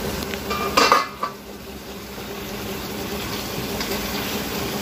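A metal clank on a steel kadai about a second in, then a wooden spatula stirring thick egg curry in the kadai over a low flame, against a steady hiss.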